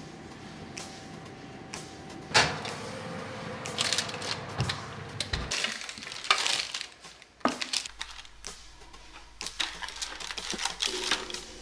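A low steady hum, then kitchen clatter: a sharp knock about two seconds in, followed by irregular clinks and scrapes of a metal baking tray and spatula against dishes on a wooden table, with another sharp knock partway through.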